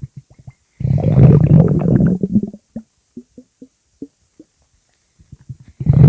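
Stomach growling: a long gurgling rumble of rapid low pulses, then a string of short separate gurgles, and a second long rumble starting near the end.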